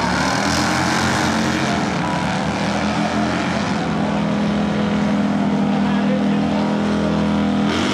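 Two Harley-Davidson touring motorcycles' V-twin engines running hard under full throttle in a drag race. The engine note is loud and steady throughout.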